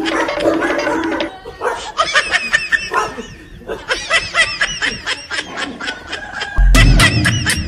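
High-pitched giggling laughter in rapid bursts, a comedy laugh effect. A dip in the laughter comes about three seconds in. Music with a heavy bass beat starts near the end.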